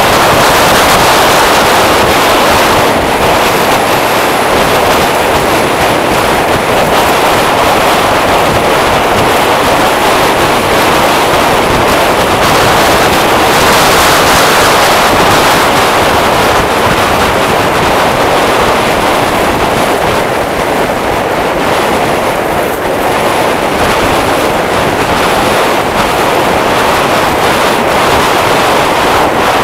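Steady rush of wind and road noise from a scooter riding at speed, with wind buffeting the microphone.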